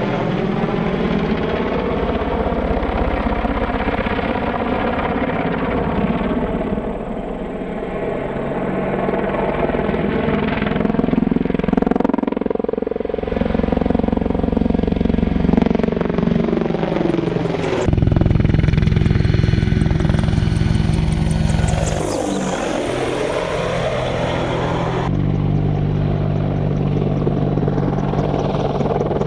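AH-64D Apache Longbow attack helicopter flying past, the steady beat of its rotor and the whine of its twin turboshaft engines. The pitch sweeps down as the helicopter passes, several times over, with sudden jumps between passes.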